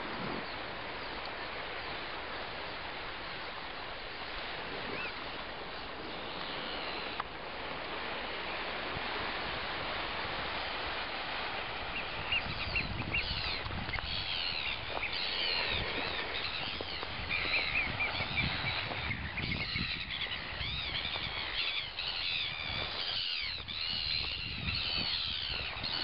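Many birds calling from about halfway on, with repeated high, arching piping cries, over steady wind noise and the crunch of footsteps on shell and gravel.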